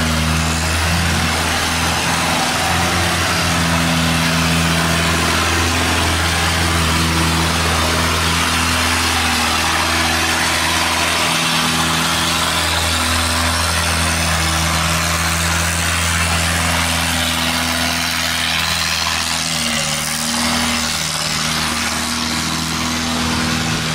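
Boat engines running hard under heavy load as long-tail boats push upstream through a sluice gate against a strong current, over the rush of fast, churning water. The engine pitch holds steady, with small shifts about halfway through and again near the end.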